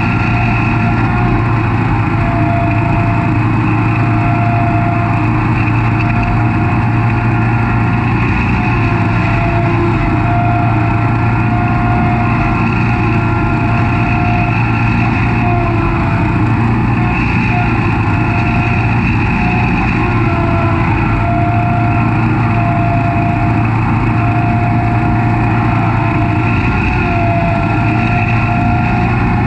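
Snapper Pro SS100 36-inch stand-on mower running steadily while mowing grass: a constant engine drone with a steady high whine over it.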